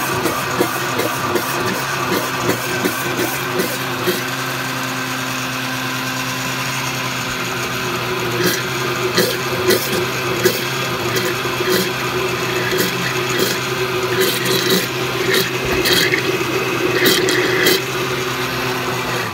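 Oster countertop blender motor running steadily, puréeing a thick ancho chile salsa, with scattered sharp clicks from the jar in the second half. The motor switches off at the very end.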